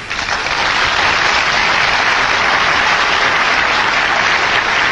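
A hall full of delegates applauding: dense, sustained clapping that swells up within the first half second and then holds steady and loud.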